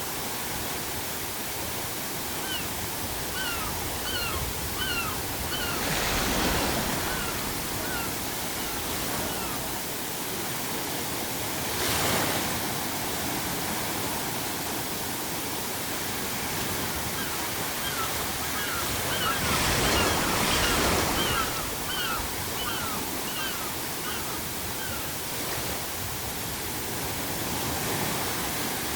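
Sea waves breaking on a shore over steady surf, with louder surges about 6, 12 and 20 seconds in. Seagulls call in quick runs of short repeated notes, a few seconds in and again from about 17 to 25 seconds.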